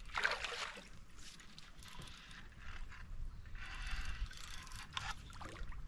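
Spinning fishing reel being cranked in several rough bursts of whirring and clicking while a hooked fish pulls on the line.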